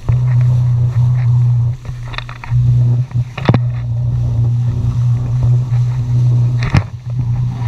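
Jet ski engine running steadily with a low drone, easing off briefly about two seconds in and again near the end, with a couple of short sharp knocks.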